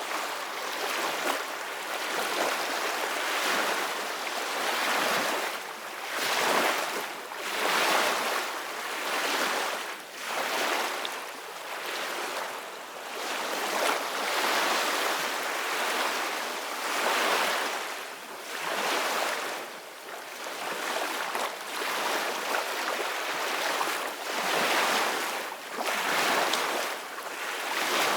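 Sea waves washing and splashing in repeated surges, each swelling and fading over two to three seconds, as a steady rushing noise.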